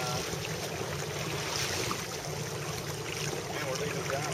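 Water rushing along the hull of a Melges 24 sailboat under sail, a steady wash, with wind on the microphone.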